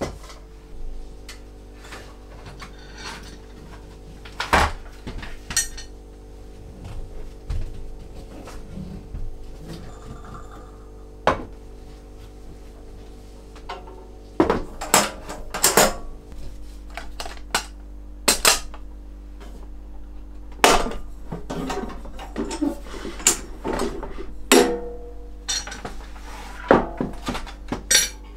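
Camping gear being handled and set down: metal cookware and a metal ammo-can toolbox clinking and knocking on a wooden shelf and table, in irregular sharp knocks with quieter rustling between, over a faint steady hum.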